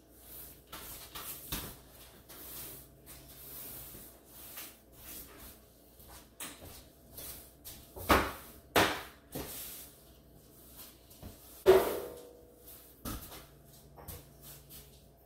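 Broom sweeping a kitchen floor in repeated short strokes, with a few sharp knocks about eight and twelve seconds in.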